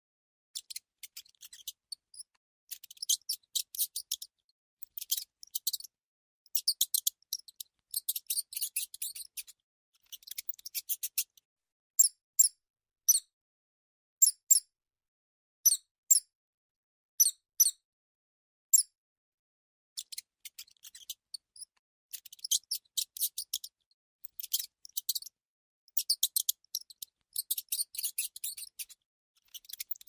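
High-pitched mouse squeaks, the sound track of an on-screen cat game, in quick chattering runs with short silences between. Through the middle they come as single squeaks about a second apart.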